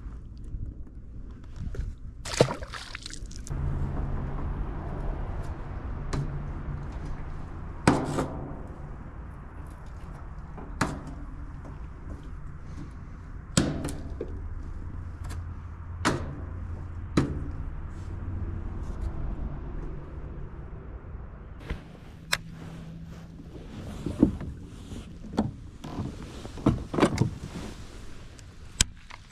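Pedal-drive fishing kayak moving through a concrete culvert: a steady low hum under sharp knocks and thunks at irregular intervals, several of them close together near the end.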